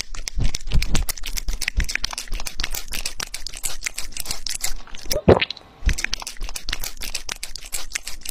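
A young rabbit eating at close range: rapid, irregular crunching and nibbling clicks, with a short rising-and-falling squeak about five seconds in.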